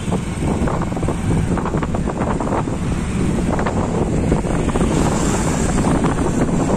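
Wind buffeting the microphone on a moving two-wheeler: a steady, loud, low rumble, with vehicle noise beneath.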